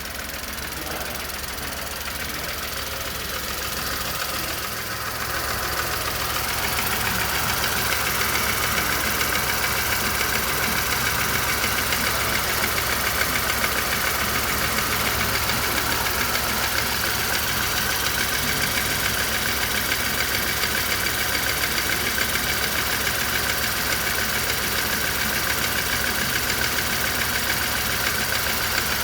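Car engine running with a persistent knock, getting louder over the first several seconds and then holding steady. The knock has not gone away after the accessory drive belt was re-fitted.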